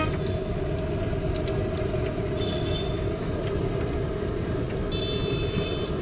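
Steady outdoor street noise, a low rumble of passing traffic, with two short high-pitched toots, one about two and a half seconds in and one near the end.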